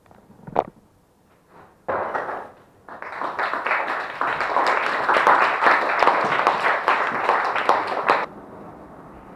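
Audience applause: a sharp tap about half a second in, a short burst of clapping near two seconds, then dense clapping that cuts off abruptly about eight seconds in.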